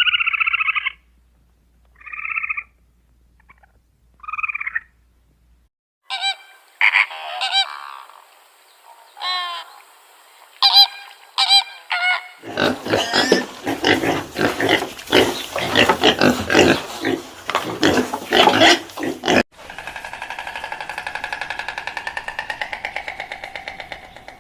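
Animal calls from several recordings cut together: a few short honk-like calls, then a series of sharp calls, then about seven seconds of dense, rapid calling, and a steady pulsing drone near the end.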